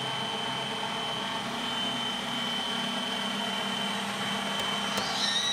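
Electric stand mixer's motor running with a steady whir and a thin constant whine. Near the end come two light clicks and a child's short high-pitched squeal.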